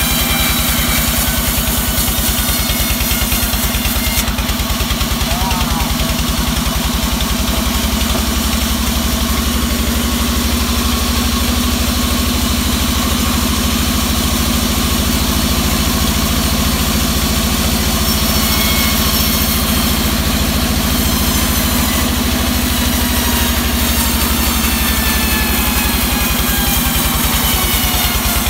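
Engine-driven band sawmill running steadily with an even, rapid low pulse, as teak logs are fed through the blade.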